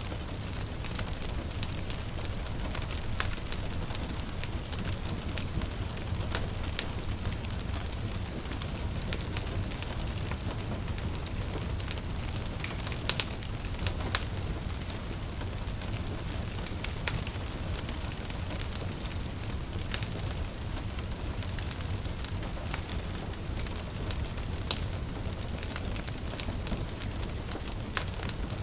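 Wood fire crackling, with frequent sharp irregular pops over a steady low rumble, mixed with gentle rain.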